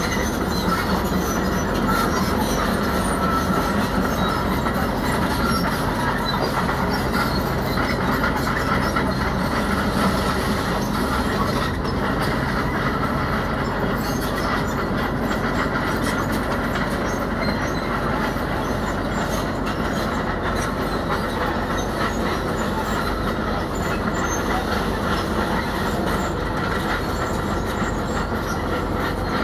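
Tracked heavy earthmoving machinery at work: a diesel engine running steadily under load, with the metal crawler tracks clanking and squealing.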